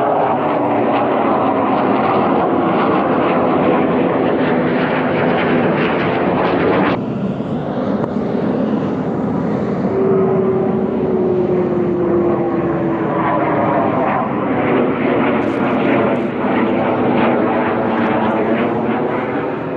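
Jet aircraft flying low overhead, a pair of them: a loud engine roar with a whining tone that slowly falls in pitch as they pass. The sound changes suddenly about seven seconds in and cuts off abruptly at the end.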